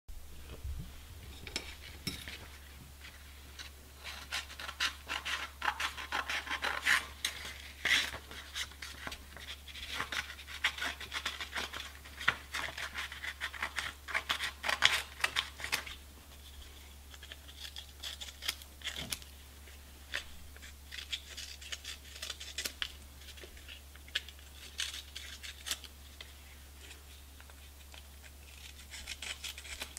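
Scissors cutting a sheet of fine 120-grit sandpaper: a dense run of crisp, crunching snips through the first half, then sparser short snips as the corners of the cut piece are rounded off.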